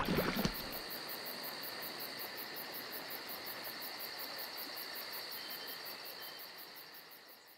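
Insects chirping in an even chorus: a steady high-pitched drone with a rapid, regularly repeating pulse above it, fading out near the end.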